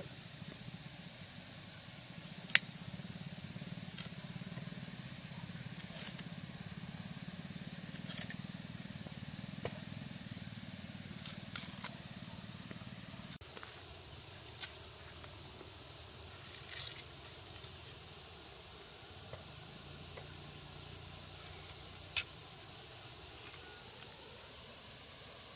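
Sugar cane being peeled and eaten by hand and mouth: short sharp cracks and snaps of the rind tearing, every two seconds or so, the loudest about two and a half seconds in and again near the end, over a steady high hiss.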